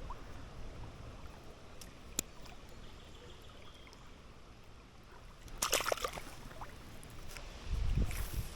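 River water running and trickling, with a brief splash about six seconds in and a low rumble near the end.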